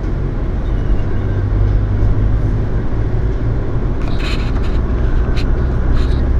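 Car driving, heard from inside the cabin: a steady low engine and road drone that settles lower in pitch past the middle, with a few brief clicks.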